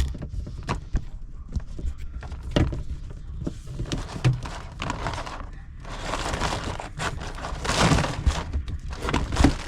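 Scattered knocks, clicks and thunks, with a longer stretch of scraping rustle from about six seconds in, from hands handling electrical cable as it is pushed through a wall opening toward an outlet box.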